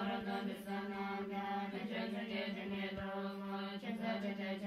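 Tibetan Buddhist nuns chanting prayers together on one steady low note, a droning recitation in phrases that break and start again every second or two.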